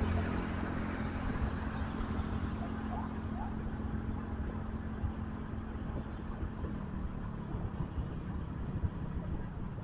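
Motorcycle engine running at steady cruising speed, with wind rumbling on the microphone; the engine note dips slightly about seven seconds in.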